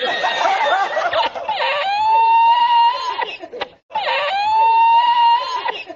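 A man laughing hard, breaking into two long high-pitched squeals, each rising and then held for about a second and a half, with a short gap between them.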